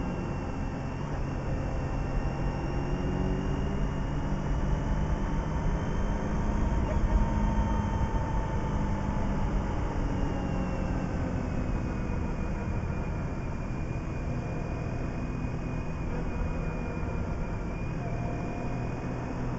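Motorcycle engine running steadily at cruising speed, with heavy wind and road noise; the engine pitch drifts gently up and down as the throttle changes on the curves.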